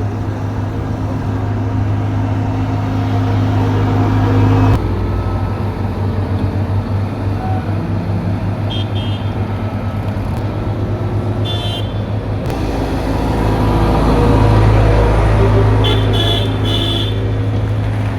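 Diesel engines of road-paving machinery running steadily with a deep hum, the sound changing abruptly about five seconds in. A few short high-pitched chirps come through later on.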